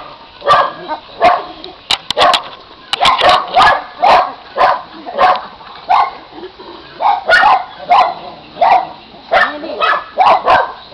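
Dogs barking over and over, short sharp barks coming about twice a second.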